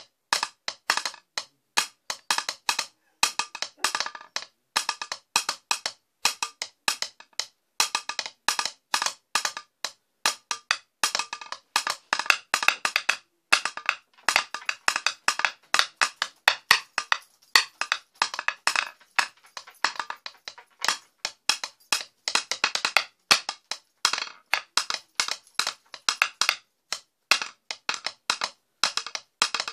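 Wooden sticks drumming on the carved wooden seat of a stool: dry wooden taps in fast, irregular flurries, broken by brief pauses.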